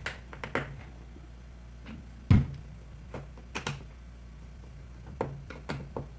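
Scattered small clicks and taps of a screwdriver working the screws of a plastic hair-dryer housing, with one heavier knock a little past two seconds in.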